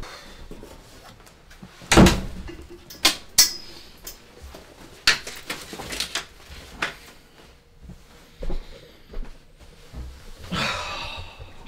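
A wooden bedroom door shut with a heavy thud about two seconds in. Then come several sharp knocks and clicks as a jacket is hung on the door, and a longer rustle near the end.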